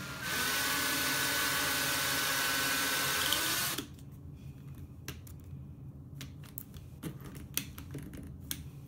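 Porter-Cable cordless drill running for about three and a half seconds with a steady whine, spinning a clamped length of 16-gauge wire to twist it, then stopping abruptly. A few faint clicks follow.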